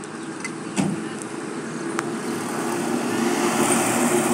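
Road traffic with engine noise, growing louder in the second half as a motorcycle comes past, with a sharp knock about a second in and a thin click at about two seconds.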